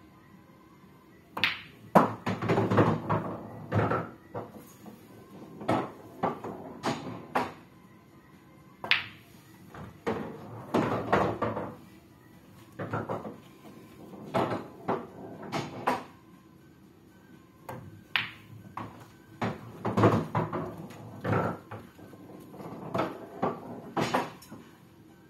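Pool balls clacking on a pool table: the cue striking the cue ball, balls colliding and knocking against the cushions, and balls dropping into the pockets, in several separate shots, each a quick run of sharp clacks and knocks.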